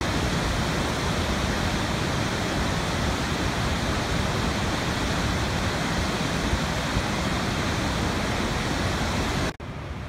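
Large waterfall, a steady, dense rush of falling water heard close to the falls. Near the end it cuts off abruptly to a quieter rush of water.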